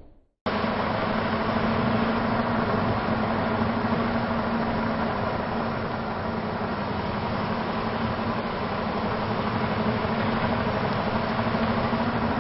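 Steady engine hum and rolling noise of a car driving over sand dunes, starting abruptly after a half-second of silence.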